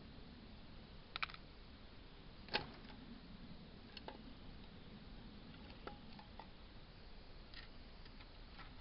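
Scattered light metallic taps and clicks from tools and valve parts on an AMC 232 six-cylinder cylinder head, about seven in all, the sharpest about two and a half seconds in, a couple with a short ring.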